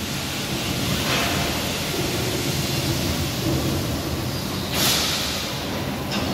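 Linear seam welding machine running with a steady, rough mechanical rumble, with a brief burst of hiss about five seconds in.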